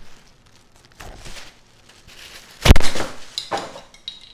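Sheet of Glad Press'n Seal plastic wrap crinkling as it is handled and crumpled, in a few separate rustles with a loud, sharp crackle a little past halfway.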